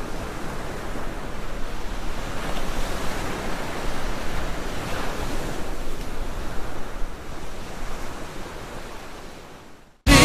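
Steady rushing noise, swelling and easing gently, that fades out over the last couple of seconds.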